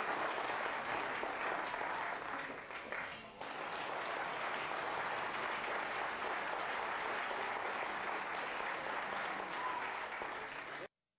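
Audience applauding, a steady clatter of many hands that thins briefly about three seconds in and then cuts off suddenly near the end.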